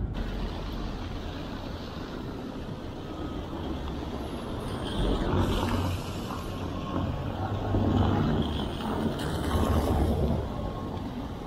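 Traffic on a rain-wet city street: a steady rumble and tyre hiss, swelling louder three times as vehicles pass.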